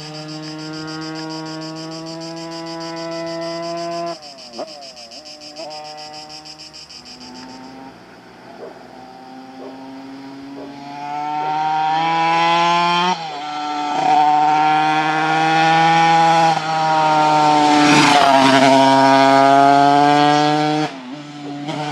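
Tuned Simson two-stroke single-cylinder moped engine with a 100 cc kit, heard onboard while riding. For the first half it runs at part throttle, steady and then easing off. From about halfway it gets much louder under hard throttle, the pitch climbing and then dropping back at each upshift, before backing off near the end.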